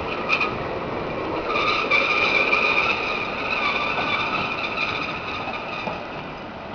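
Cable car passing along the street, giving a steady high squeal over a running rumble. The squeal is loudest about two seconds in and fades as the car moves off.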